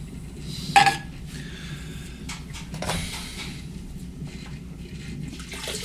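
Wet hands working the walls of a thrown clay pot on a spinning potter's wheel: wet swishing and rubbing of hand on slick clay over the steady hum of the wheel. A sharp squeak just under a second in is the loudest sound.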